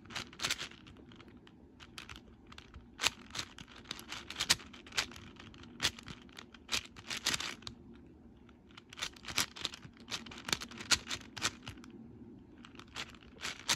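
Man Shadow V1 M 6x6x6 speedcube, lubricated with silk lube, being turned fast by hand: rapid, irregular clacking and clicking of plastic layers, with brief lulls twice.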